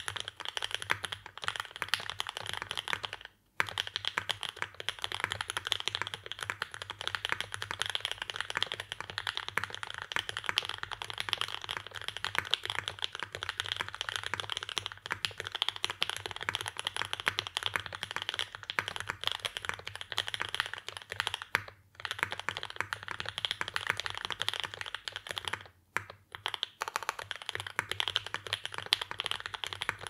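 Continuous typing on a Mode 80 mechanical keyboard with lubed Banana Split linear switches in an aluminium plate with no plate foam, under GMK keycaps: a dense run of keystrokes. The typing breaks off briefly three times: about three and a half seconds in, around twenty-two seconds, and around twenty-six seconds.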